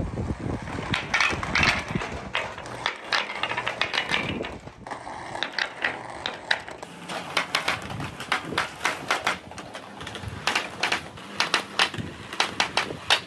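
Translucent blue balls rolling down a long clear pipe, with a rolling rumble and many sharp clicks as they knock against each other and the pipe wall; the clicks come thicker in the second half.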